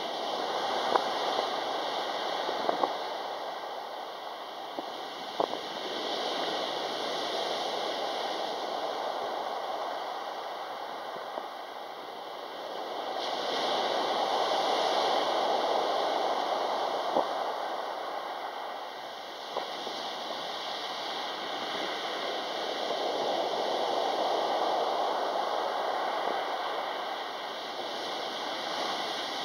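Sea waves breaking and washing up a pebble beach: a steady rush of surf that swells and ebbs, rising to two bigger surges about halfway through and again a few seconds before the end, with a few sharp clicks among it.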